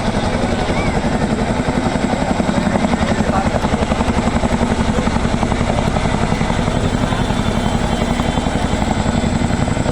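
Boeing CH-47 Chinook tandem-rotor helicopter, its rotors beating in a rapid, steady chop over the engine noise.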